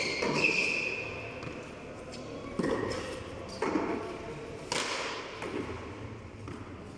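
Tennis ball struck by hand and smacking the wall and concrete floor in a frontón rally: a thud at the start, then three more about a second apart, each echoing in the enclosed court. A short high squeak comes just after the first thud.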